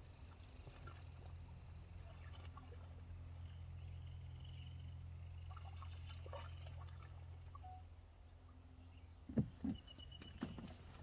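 A faint low steady hum that fades out about eight seconds in, followed by a few short low thumps around nine and a half seconds in and again near the end.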